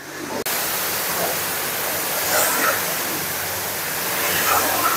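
Steady hiss of a self-serve car wash's high-pressure spray wand jetting water and foam onto a car, starting suddenly about half a second in.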